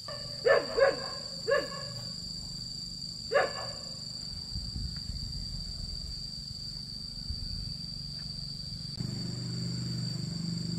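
An animal gives four short calls in the first few seconds, each falling in pitch. Behind them runs a steady, high-pitched drone of insects.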